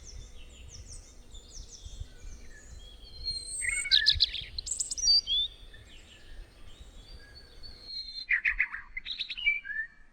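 Several birds singing and chirping in short, overlapping whistled phrases, with louder bursts of song about four seconds in and again near the end. A low background rumble drops away about eight seconds in.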